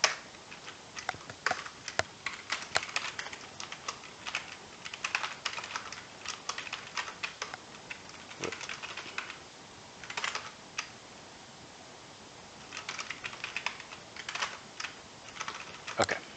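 Typing on a computer keyboard: quick runs of keystrokes in bursts, broken by a pause of a couple of seconds past the middle, with a sharper single key press near the end.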